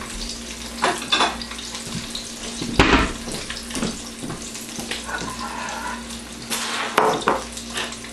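Pieces of red snapper shallow-frying in hot oil in a wok as they are browned: a continuous sizzle with irregular crackles and pops, the loudest about three seconds in and again around seven seconds.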